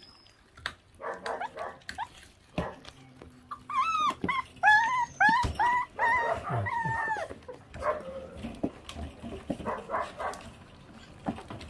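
Month-old puppies whimpering and yipping in a quick run of about seven high, rising-and-falling cries, starting about four seconds in, with short clicks and rustling from their gnawing on raw meat and bone.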